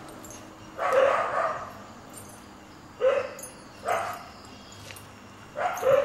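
A dog barking four times, a second or two apart.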